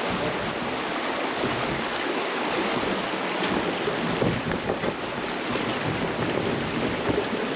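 Shallow creek rapids rushing steadily over rocks and around the hull of an aluminum boat.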